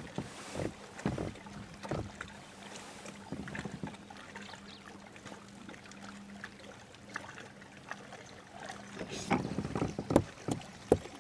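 Water lapping and light knocks against a plastic fishing kayak's hull, with small clicks from the spinning rod and reel as the lure is worked. Scattered knocks, with a cluster of louder ones near the end.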